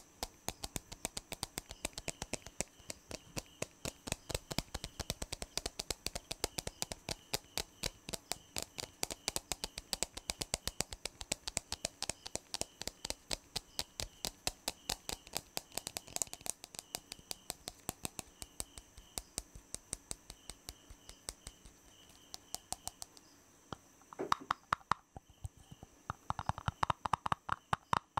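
Very fast, aggressive tapping with the fingers on hard objects, a rapid, steady run of sharp taps many times a second. A few seconds before the end the taps change to a fuller, louder sound, as on a different surface.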